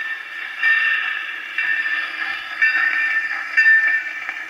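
Recorded railroad sound effects from a record of around 1950, played back on a 1935 wind-up Victor acoustic phonograph: a train recording with a ringing tone that is struck again about once a second.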